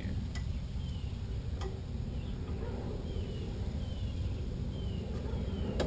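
A bird giving short, falling chirps about once a second, over a steady low rumble, with a couple of sharp clicks in the first two seconds.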